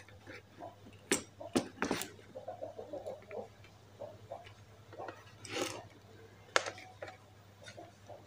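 Handling noise from multimeter test leads and probes on an old bicycle dynamo: light taps and rustling, with a few sharp clicks, three in the first two seconds and one more about six and a half seconds in.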